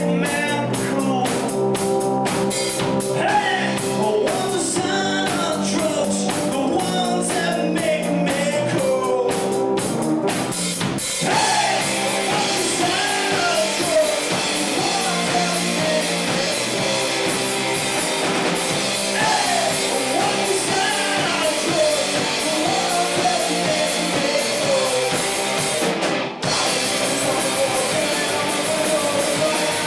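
Live rock band playing: electric guitars and a drum kit with a male lead vocal singing over them. About a third of the way in the band gets fuller and denser, and there is a very brief drop-out in the sound near the end.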